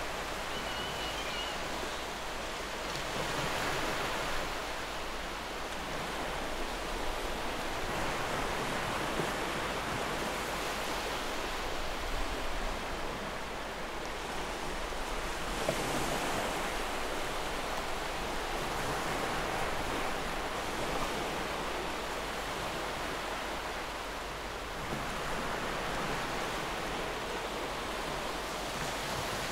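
Ocean surf: a steady rushing wash of waves that swells and eases every few seconds.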